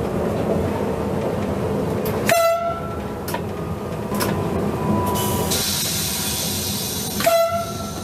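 Two short blasts of a French train's horn about five seconds apart, heard from inside the driver's cab over the train's steady running noise, as it passes through tunnels.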